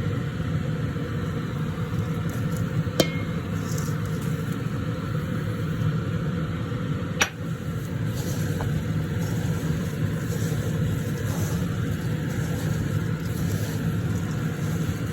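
A steady low mechanical hum, with two sharp clicks, one about three seconds in and one about seven seconds in.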